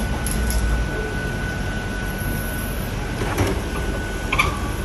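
Hoshizaki ice machine running, a steady mechanical hum with a thin high whine, with a couple of short clatters near the end.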